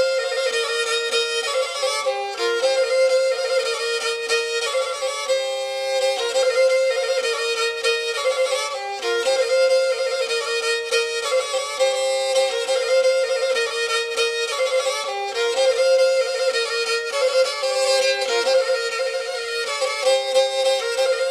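Folk music played on a bowed fiddle-type string instrument: a repeating melody in short notes, without bass.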